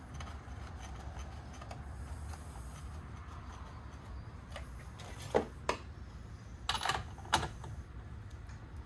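Several sharp metallic clicks and taps in the second half, from a spark plug being screwed back into a Stihl MS 250 chainsaw's cylinder and its parts handled, over a faint low hum.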